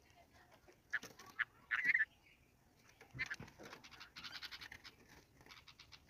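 Red-vented bulbul: a short chirping call about two seconds in, the loudest sound, with scattered clicks and a quick run of scratchy clicks after four seconds as the bird moves on the corrugated roof sheet.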